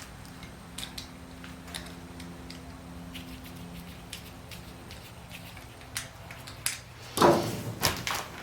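Scattered light clicks and taps of work on a car, then about seven seconds in a burst of loud knocks and clatter, like metal parts or tools being handled and set down.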